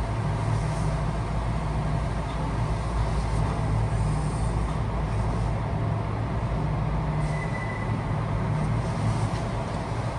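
Kintetsu Osaka Line express train running, heard from inside the passenger car: a steady rumble of wheels on rail with a low motor hum, and a brief faint high squeal about seven seconds in.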